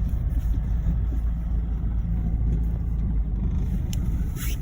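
Mazda 3 (BK) being driven over a rough road: a steady low road rumble with a few light knocks, the sharpest about four seconds in. The owner takes the knocking for worn front sway bar end links or an upper strut mount bearing.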